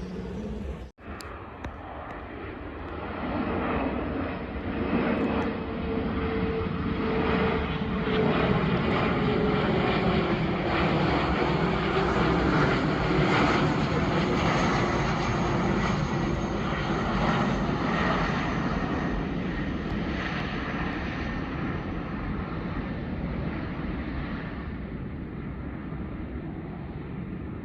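Jet airliner passing overhead: the engine roar swells, peaks, then slowly fades, with an engine tone that glides down in pitch as it goes by.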